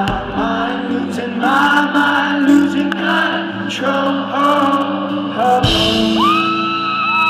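Rock band playing live with a singer's voice over the instruments, recorded from the audience at a concert.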